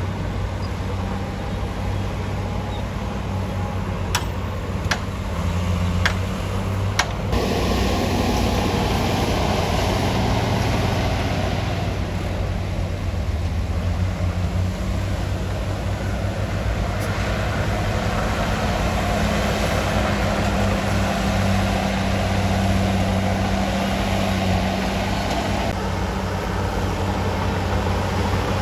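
Heavy diesel earthmoving machine running steadily, with four sharp metallic clicks about four to seven seconds in, after which it gets louder and fuller.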